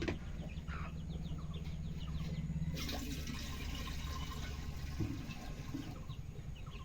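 Water being poured: a rushing splash starts about three seconds in and stops with a knock around five seconds, over a steady low rumble.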